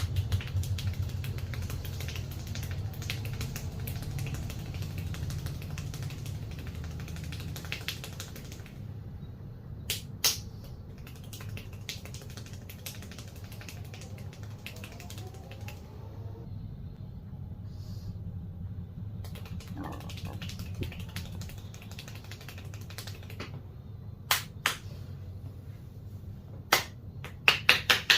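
Hand work during a barber's head massage: scattered sharp snaps and clicks, several loud ones in pairs, over a steady low hum.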